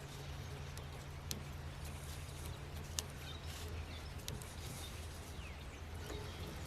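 Faint outdoor ambience with a low steady hum, two sharp clicks about a second and a half apart, and a few faint bird-like chirps.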